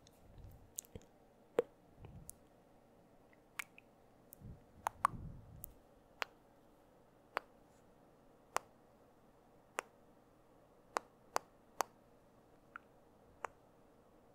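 Wet mouth clicks made right at a foam-covered microphone: single sharp clicks, at first irregular and then about one a second, with a few soft breathy sounds in the first half.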